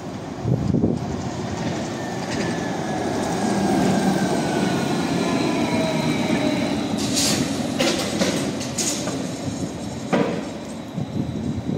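Electric trolleybus pulling in, its traction motor whine falling steadily in pitch as it slows. A few sharp clacks come about two-thirds of the way through, and a single knock comes near the end.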